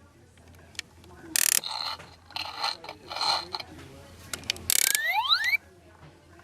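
Fisher-Price Little People toy worked by hand: plastic clicking and ratcheting, with several short sound effects from its speaker and a rising glide about five seconds in.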